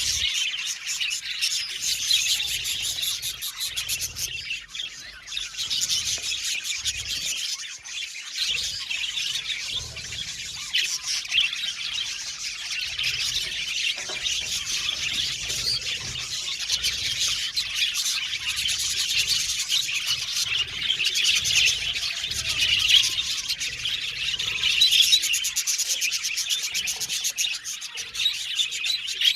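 A flock of budgerigars chirping together, many calls overlapping without a break.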